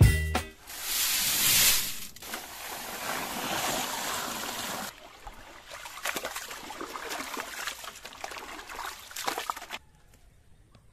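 Water sloshing and trickling in an aluminium pot as rice is stirred in it with a wooden spatula, with light scraping clicks; the sound is strongest about a second in and cuts off shortly before the end.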